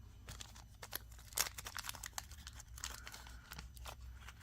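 A small plastic packet of crystal beads being handled and opened: crinkling and tearing of thin plastic with a run of sharp little clicks, the loudest about a second and a half in.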